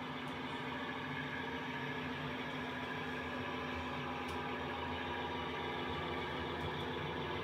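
A DCC sound-fitted model diesel locomotive's engine sound from its decoder speaker, idling steadily and growing slightly louder toward the end.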